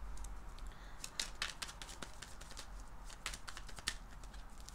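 Tarot cards being handled at the table: a run of light, irregular clicks and ticks, several a second.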